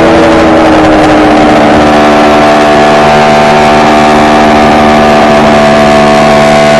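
Kawasaki KR250 two-stroke tandem twin running on the move, its pitch falling in the first second as the throttle eases, then holding nearly steady at cruise.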